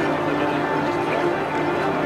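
Background music with held, sustained notes over a steady hiss.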